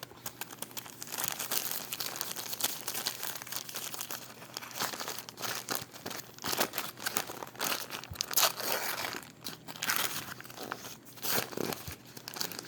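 Food wrapper crinkling and tearing as it is handled and pulled open, in irregular crackles with louder spells near the middle.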